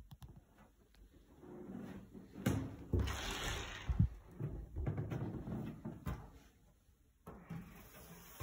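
An apartment's wood-veneered front door being opened: clicks from the lock and lever handle, a burst of rattling, and a sharp knock about four seconds in, followed by handling and movement noise as the door swings open.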